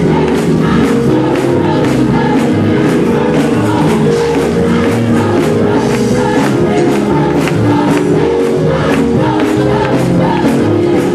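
Gospel choir singing in full voice, many voices holding sustained notes together over a steady clapping or percussive beat.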